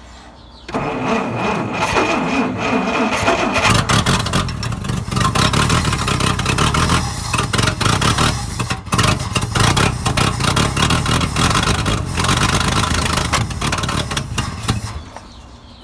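Dodge D300's slant-six petrol engine cranking on the starter and catching a few seconds in. It then runs roughly, its revs rising and falling, on petrol poured from a bottle straight into the carburettor because the fuel pump is not working. It dies near the end: a first start after about twenty years standing.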